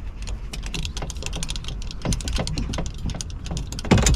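Trailer jockey-wheel jack being hand-cranked: a quick, uneven run of small metallic clicks and rattles, with a heavier knock about two seconds in and a louder clunk near the end.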